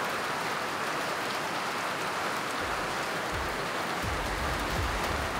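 Heavy rain falling steadily, an even hiss, with a low rumble coming in underneath a little past halfway.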